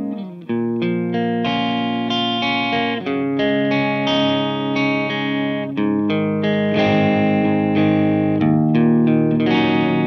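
Electric guitar played through an Orange OR15 tube amp head with an EL84 power section, set to its clean tone. Ringing chords change every second or two, with a short break about half a second in.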